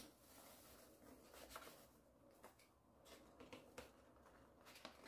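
Faint rustling of a paper flour bag as wheat flour is poured into a metal sifter, with a few soft ticks; otherwise near silence.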